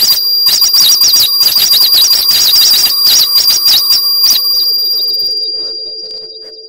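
Arturia ARP 2600 synthesizer patch: a high whistling tone warbling up and down about three times a second over a lower steady tone, with rapid noisy crackling clicks. The clicks stop about four seconds in and the sound fades over the last two seconds.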